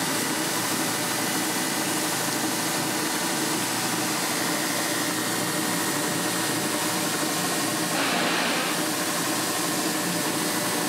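Steady drone and hiss of shop machinery, with a short splash of water about eight seconds in as a forged steel blade is dipped into a bucket to cool.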